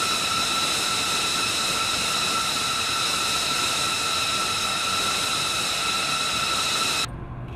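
Jet turbine running steadily on the flight line: a high, multi-toned whine over a loud rush of air. It cuts off abruptly about seven seconds in, leaving a quieter low hum.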